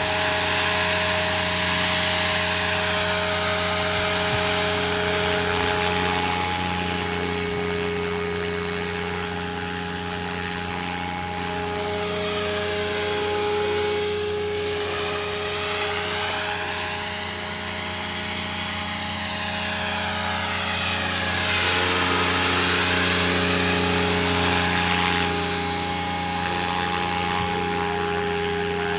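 HobbyKing 500 GT electric radio-controlled helicopter, a Trex 500 clone, hovering and flying about: a steady whine from the motor and gears over the rushing of the rotor blades. The rushing swells and sweeps up and down in pitch as the helicopter moves around.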